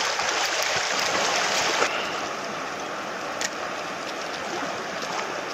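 Fast river current rushing steadily past the bank, a little louder for the first two seconds, with one faint click about three and a half seconds in.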